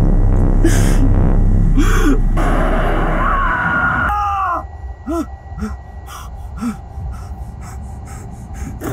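A man screams in a long, high cry, then gasps for breath in quick repeated gasps. A low drone underneath cuts off suddenly about halfway through.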